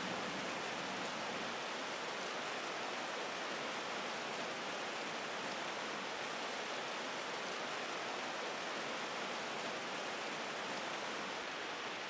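Steady, even hiss of water, rain or rushing water, with no change in level.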